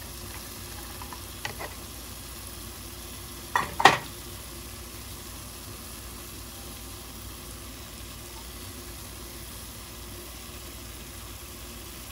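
Seasoning base sizzling steadily in a hot pot, with a sharp knock about 4 seconds in and a few faint clicks.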